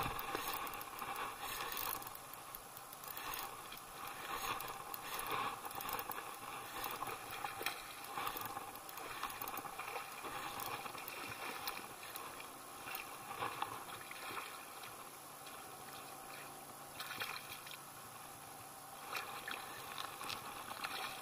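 A hooked fish splashing and swirling at the surface of a weedy pond as it is reeled in to the bank, with irregular sloshing and rustling throughout and a sharp knock right at the start.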